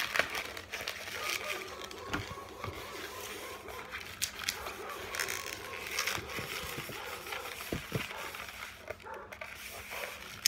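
Long latex modelling balloons rubbing and squeaking as they are twisted by hand, with scattered crackles and short squeaks.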